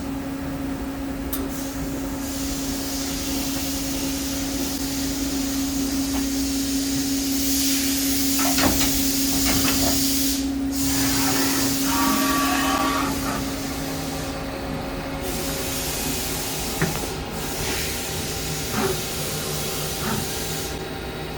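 Daewoo DMV4020 CNC vertical machining center running, with a steady hum-like tone that stops about three quarters of the way through. A hiss cuts out briefly twice, and there are a few sharp clicks.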